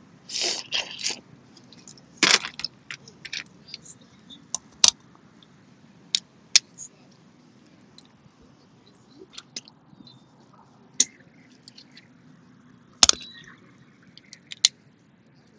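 Boiled crawfish being eaten close up: sucking at the shells, shells cracking apart and chewing, in short scattered bursts and clicks. The loudest bursts come in the first couple of seconds, with another sharp crack about 13 seconds in.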